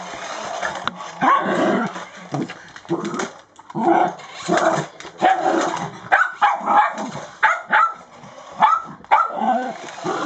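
Small shaggy dogs barking in short, repeated bursts at a light-up remote-control toy car.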